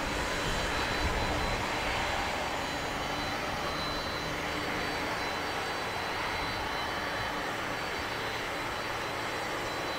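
Boeing 747-400F freighter's four jet engines at low taxi thrust: a steady rumble and hiss with a thin high whine over it.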